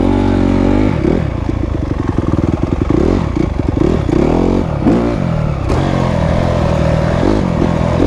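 Dirt bike engine running under way, its revs rising and falling again and again as the rider opens and closes the throttle.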